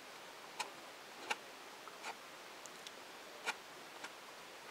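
Light, irregular clicks from small parts on a plastic RC car rear hub carrier being handled as a small screw is worked into it, about six faint ticks spread across a few seconds.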